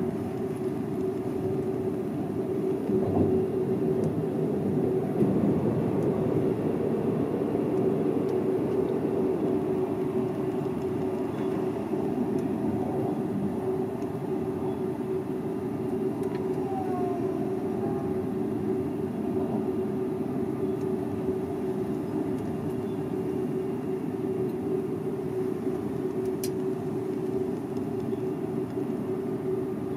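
Seibu 001 series Laview electric limited-express train running at speed, heard from inside: a steady rumble of wheels on the rails with a steady hum through it. A single sharp click near the end.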